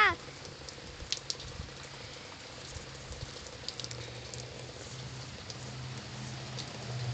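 Steady rain pattering on the porch and yard, with scattered drips clicking close to the microphone. A short pitched call sounds right at the start, and a low steady hum comes in about four seconds in and grows louder toward the end.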